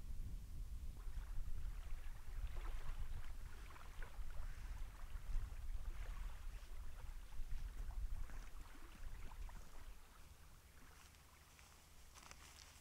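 Small waves of Lake Baikal lapping and splashing irregularly at the shore, over a low rumble that drops away about ten seconds in.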